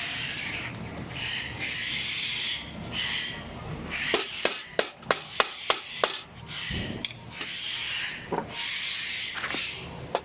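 Aluminium rack parts being handled and fitted together: repeated scraping and rubbing, with a quick run of about eight sharp taps or clicks in the middle.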